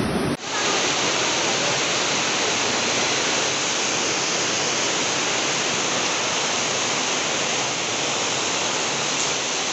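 Muddy floodwater rushing down a street in a fast torrent: a loud, steady roar of water. There is a brief break about half a second in, then the rush goes on unchanged.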